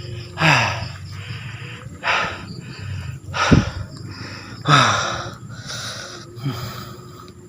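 A man's heavy breathing: five loud sighing, voiced exhales about one every second and a half, with a low thump about halfway through.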